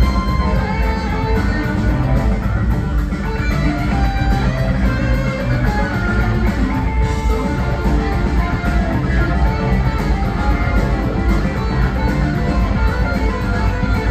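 Live rock band playing, electric guitar to the fore over drums, percussion and keyboards.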